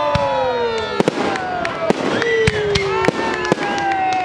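Aerial firework shells bursting in quick succession, sharp bangs about two a second with crackling between them. Long, slowly falling tones run underneath.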